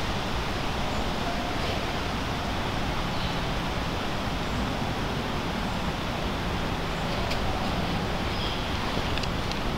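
Steady rushing outdoor background noise with no clear pitch, with a few faint short ticks and small chirps scattered through it.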